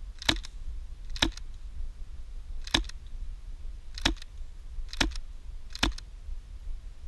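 Six sharp double clicks at uneven intervals, roughly one a second, over a steady low rumble.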